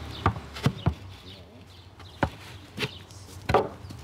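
A donkey being led at a walk on packed dirt, its hooves and a person's footsteps giving about six sharp, irregular knocks.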